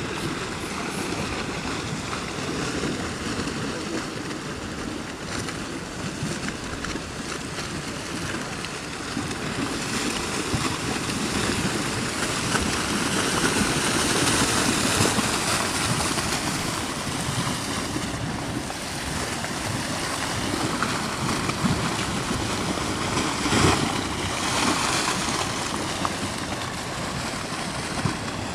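Flash-flooding river thick with mud and debris, rushing with a steady, unbroken noise that swells louder midway, with gusts of wind buffeting the microphone.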